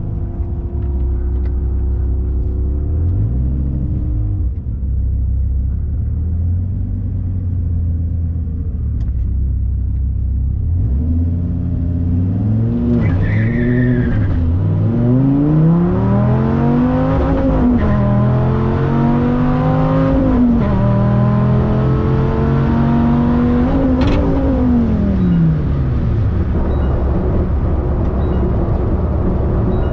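Dodge Viper V10 on a drag strip run. It idles at the line with a few blips, then launches about halfway through and revs up through several upshifts. Its pitch drops away as the throttle is lifted near the end.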